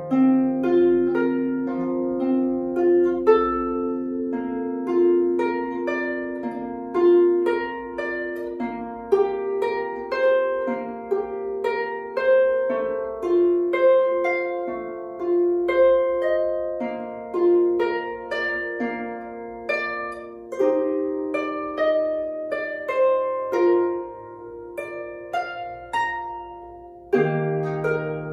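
A small harp played solo: a flowing melody of plucked notes over ringing bass notes, with a louder chord struck near the end.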